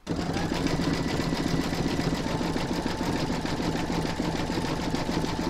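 Computerized embroidery machine sewing satin stitch: a steady, rapid run of needle strokes over a constant motor hum.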